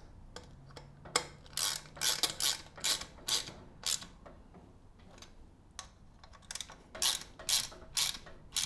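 Hand ratchet wrench clicking through repeated strokes as it tightens the two long mounting bolts of a Bafang BBSHD mid-drive motor: a run of quick ratcheting strokes, a pause of about three seconds, then a few more strokes near the end.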